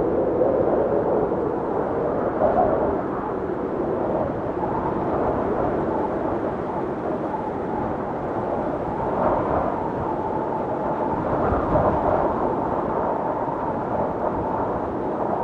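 Blizzard wind blowing steadily in gusts, with a hollow howl that wavers in pitch and swells a few times.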